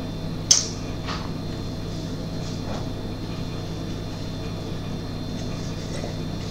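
Steady low hum with a single sharp click about half a second in, followed by a few faint taps.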